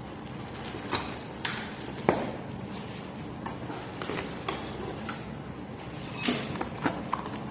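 Irregular light clicks and knocks of parts being handled during unboxing and assembly, over a steady background hiss.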